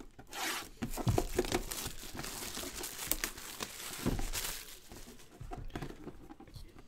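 Clear plastic shrink wrap being torn off a cardboard trading-card box and crumpled in the hand, a dense crinkling for about four seconds with a couple of dull knocks from the box being handled. The crinkling dies down to lighter handling noise near the end.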